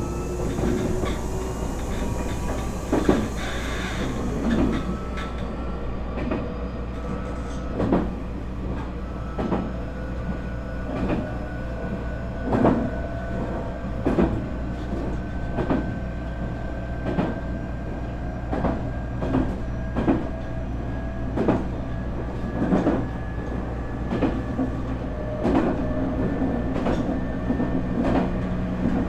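Nankai 8300-series IGBT train's traction motors and VVVF inverter whining from inside the motor car, the tones slowly rising in pitch as the train gathers speed. The wheels click over rail joints about every second and a half.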